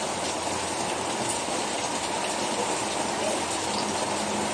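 Steady rain falling, an even hiss with a few drop ticks.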